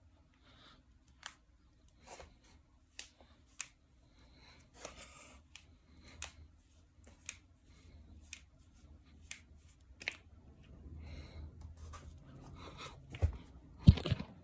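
Finger joints and knuckles cracking: a series of sharp pops about one a second, with soft rustling of hands between them. Near the end come two louder, deeper thumps.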